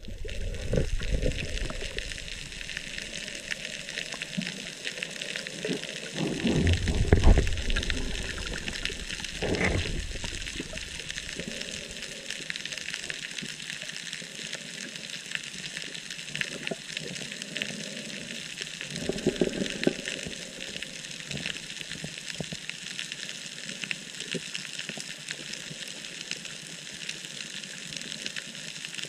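Underwater sound heard through a camera housing: a steady hiss with fine crackling, and louder low rushes of water about six to eight seconds in, briefly near ten seconds, and again around nineteen seconds.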